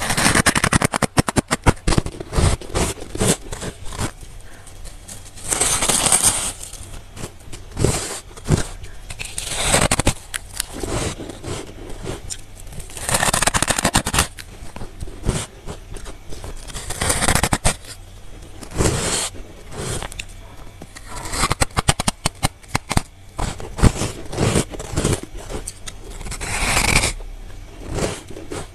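Close-up bites into fluffy freezer frost, with crisp, crackly crunching in clusters of a second or two, repeating every few seconds.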